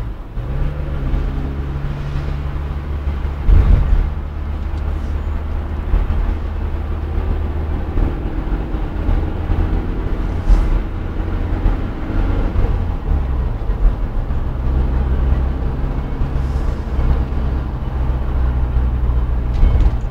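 Vehicle engine running steadily while driving, with a low pitched hum. There is a knock about three and a half seconds in, and the engine note shifts about twelve seconds in.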